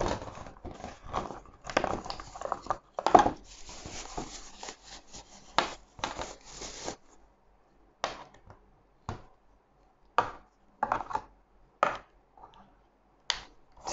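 Cardboard box flaps and a thin plastic bag rustling and crinkling as a webcam is pulled out and unwrapped. After about seven seconds this gives way to a few scattered light clicks and taps as the webcam and its cable are handled.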